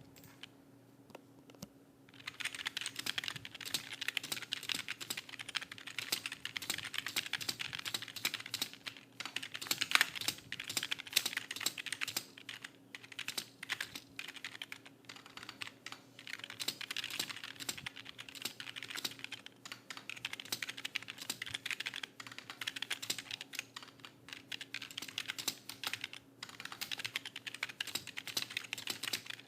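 Fast typing on a computer keyboard: a rapid, uneven stream of key clicks starting about two seconds in, broken by brief pauses.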